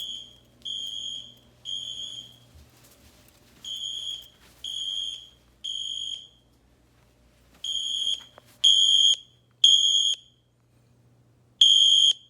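Two fire alarm horn sounds, the new Siemens ACEND and the Edwards Genesis, played together through a tablet's speakers. It is a high, buzzy horn tone in groups of three short blasts, the temporal-three evacuation pattern, repeating about every four seconds and louder from about two thirds of the way in.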